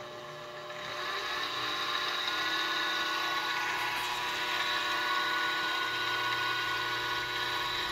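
Craftex CX605 mini mill-drill's spindle motor starting as its speed knob is turned up, rising in loudness over the first couple of seconds, then running steadily with a whining hum. The end mill spins free above the work, not yet cutting.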